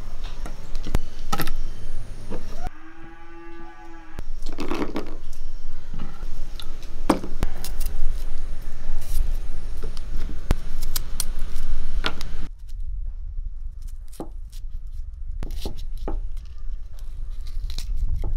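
Small hand knife peeling garlic cloves and slitting green chillies, with scattered sharp clicks and taps of the blade and of pieces dropping into a clay bowl.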